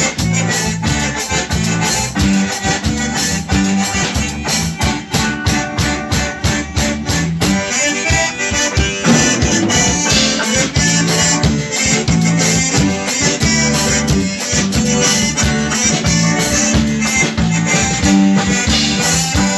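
Instrumental break of a gaúcho band song: accordion playing the lead over guitar, bass and drums, with a steady dance beat.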